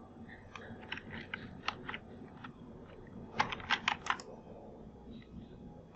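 Computer keyboard and mouse clicks, scattered and light, with a quick run of about five keystrokes about three and a half seconds in.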